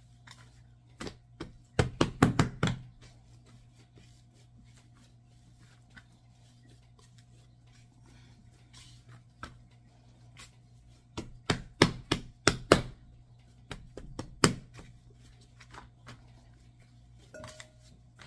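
Naan dough being kneaded and pressed by hand on a floured silicone mat over a wooden counter, giving clusters of soft thumps, about two seconds in and again around eleven to thirteen seconds, with a faint steady hum underneath.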